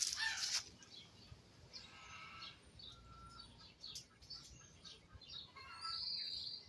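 Birds chirping and calling in the background: many short, scattered chirps and call notes, fairly faint, after a short burst of noise at the very start.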